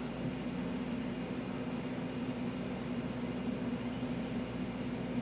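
A cricket chirping steadily, about three short high chirps a second, over a steady low hum.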